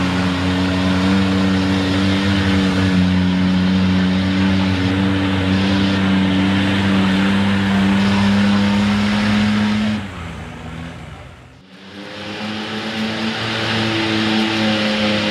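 Dark blue Ford short-bed pickup's six-cylinder engine running steadily as the truck churns through deep mud. The sound dips away about ten seconds in, then the engine comes back, its pitch rising as the truck drives into the mud.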